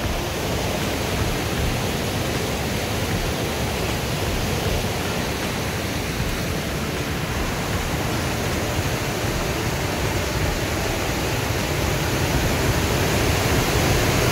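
Rapids and waterfalls of the Great Falls on the Potomac River, a steady rush of white water at an even level.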